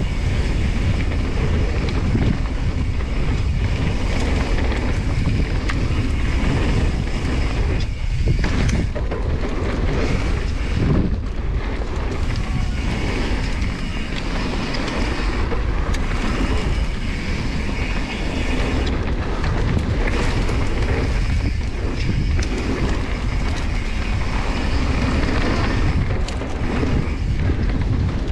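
Wind rushing over a GoPro Hero 9's microphone during a mountain-bike descent, mixed with tyre noise on a dirt and gravel trail and frequent short rattling knocks from the bike over bumps.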